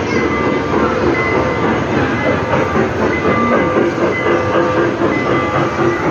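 A train running, a steady dense noise throughout with faint thin high tones coming and going.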